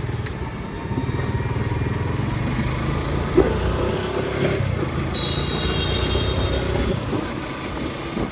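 Suzuki motorcycle running steadily under way, with road noise. A shrill pitched tone sounds for about two seconds just past the middle.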